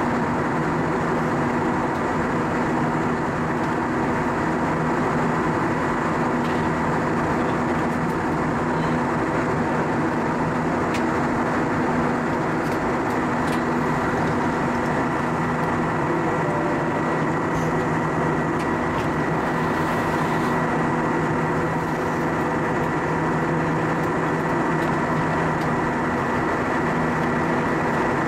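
Steady in-cabin drone of an Airbus A320-232 in flight, heard beside the wing: the IAE V2500 turbofan's hum and rushing airflow, with a thin steady high whine over a low hum.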